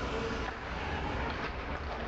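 Ice rink ambience during a hockey game: a steady low rumble with faint distant voices.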